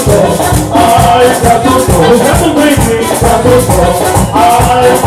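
Live Latin dance band playing: bass, hand drums and a fast, even scraping or shaking beat from a handheld metal percussion instrument, with melodic lines over them.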